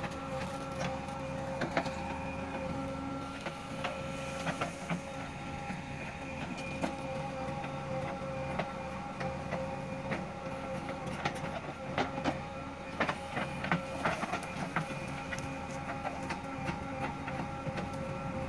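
JCB 3DX backhoe loader's diesel engine running steadily, with frequent sharp clanks and knocks.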